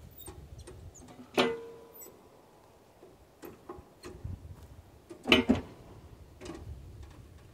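Metal clanks and knocks from handling the steel parts of a tractor-mounted backhoe: a sharp clank about a second and a half in that rings briefly, a quick run of clanks just past five seconds, and light clicks and taps between.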